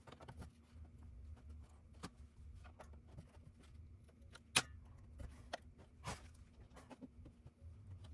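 Scattered small clicks and taps of tools and parts being handled while an external GPU enclosure is taken apart, the loudest a sharp click about four and a half seconds in, over a steady faint hum.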